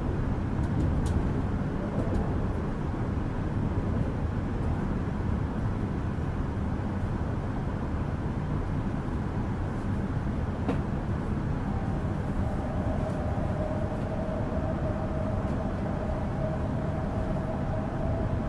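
H5 series Shinkansen heard from inside a passenger car, pulling out with a steady rumble of running noise. About two-thirds of the way through, a steady whine joins in and holds.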